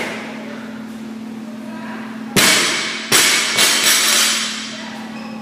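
Loaded barbell with bumper plates dropped from overhead onto rubber gym flooring. It lands with a heavy crash about two seconds in, bounces and lands again, then rattles and settles.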